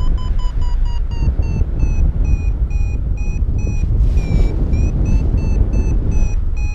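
Paragliding variometer beeping a few times a second, its pitch rising a little and then easing, with a short break about four seconds in. The beeping climb tone signals that the wing is in lift and climbing. Under it is a steady rumble of wind on the microphone.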